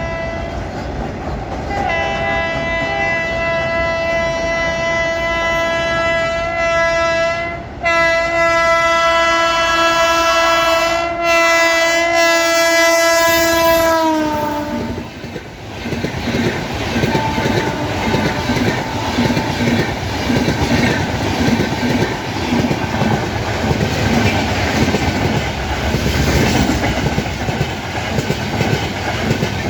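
A passing train's horn sounds a long chord of several notes, broken twice by short gaps, and its pitch drops as the train goes by about fourteen seconds in. Then the train's wheels clatter steadily over the rail joints.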